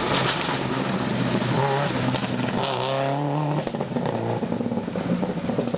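Rally car engine at high revs, its pitch climbing and dropping back with gear changes.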